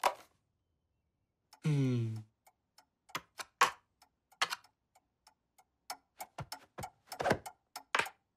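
Cartoon pendulum wall clock ticking, with sharper clicks among the ticks, marking bored time passing. About two seconds in comes a short falling pitched sound, like a sigh or groan.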